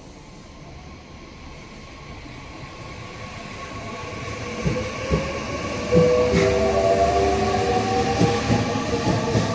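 JR 315 series electric multiple unit train growing steadily louder as it approaches, its traction motor whine rising in pitch from about halfway through, with a few wheel knocks along the way.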